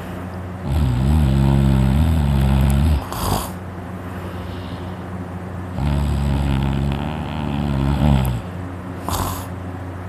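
A person snoring loudly: two long rattling snores on the in-breath, each about two and a half seconds, about five seconds apart, each followed by a short breathy puff. The sleeper puts the snoring down to the uvula vibrating.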